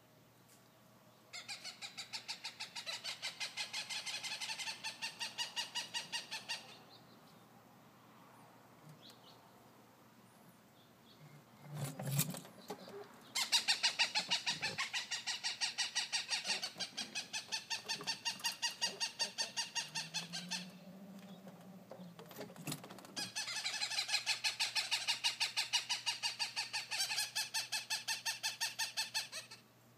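A hawk calling in three long runs of sharp notes repeated about four or five times a second, each run lasting several seconds. There is a brief low knock between the first and second runs.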